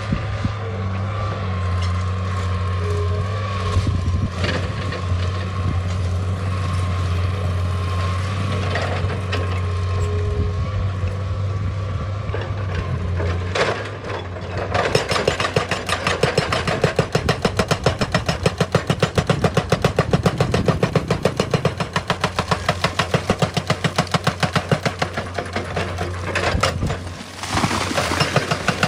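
Excavator's diesel engine running steadily. About halfway through, a rapid, even pounding of impacts starts, several a second, and stops shortly before the end.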